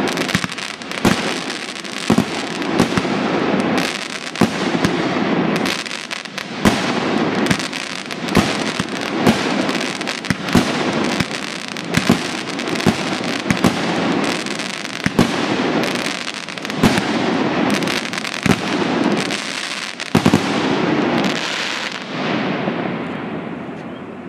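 Lynch Imports Head Banger 19-shot consumer firework cake firing: sharp shots about once a second over continuous crackling from the crackle bouquets. The crackling dies away near the end as the cake finishes.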